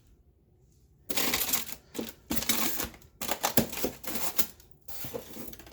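Packaging being handled during an unboxing, heard as bursts of rapid crinkly rustling and clicking that begin about a second in.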